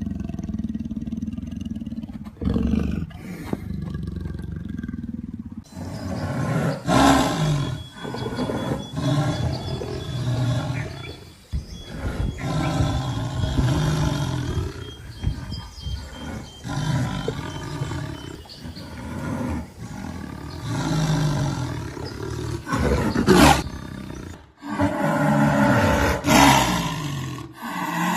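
Jaguar growling and roaring: a series of rough, low calls a second or two apart, with abrupt edits between takes.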